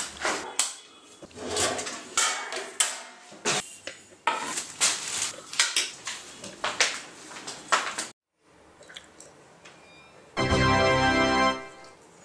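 Thin plastic carrier bag rustling and crinkling in irregular bursts as it is handled. After a short lull, a held keyboard chord sounds for about a second near the end.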